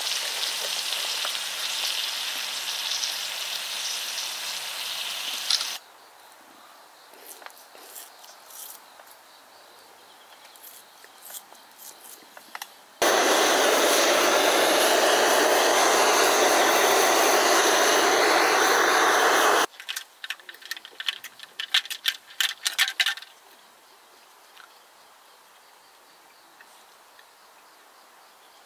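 Steak and garlic sizzling on a griddle pan, cutting off abruptly about six seconds in. After a quiet stretch with faint crackles, a handheld gas torch flame hisses loudly and steadily for about six seconds as it sears the beef, stops suddenly, and is followed by a run of sharp crackles.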